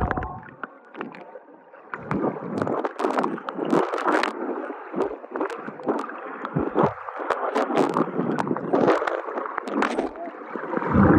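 Water splashing and sloshing in a pool, with many irregular splashes.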